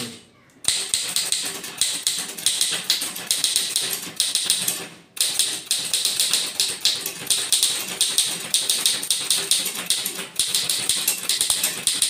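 Godrej manual typewriter being typed on fast: a rapid, continuous clatter of typebars striking the platen. It starts just under a second in and pauses briefly about five seconds in.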